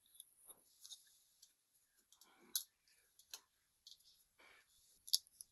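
Faint, scattered clicks of a folding multitool being handled, its spring-loaded blade snapping as it is worked, with the clearest clicks about two and a half, three and a half and five seconds in.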